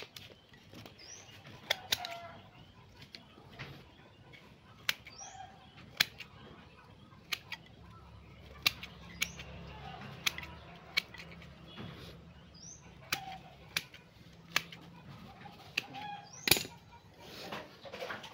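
Hand pruning shears snipping through the woody roots of a dug-up tree stump: sharp clicks at irregular intervals, about one a second. A few faint bird chirps sound in the background.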